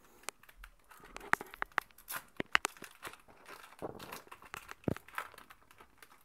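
Foil wrapper of a Yu-Gi-Oh! booster pack being torn open and crinkled by hand, a run of sharp crackles and crumples.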